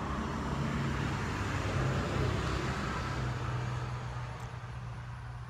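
A motor vehicle going past, its noise building over the first two seconds or so and then slowly fading, over a steady low hum.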